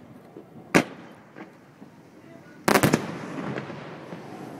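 Fireworks going off: a single sharp bang about a second in, then a quick cluster of several bangs near three seconds in that echo away.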